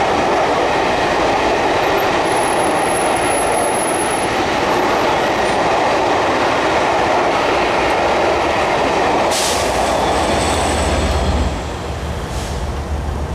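Belmond British Pullman coaches rolling past at speed: a loud, steady rush of steel wheels on rail. The noise drops away about eleven and a half seconds in as the last coach clears.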